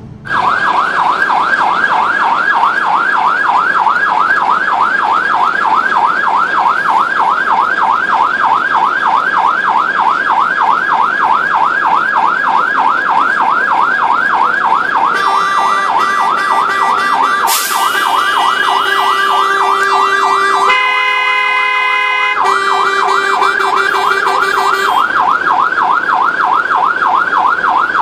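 An emergency vehicle's siren in a fast, even up-and-down yelp. Past the middle a horn sounds over it in long blasts, and for a moment the siren drops out and only the horn is heard.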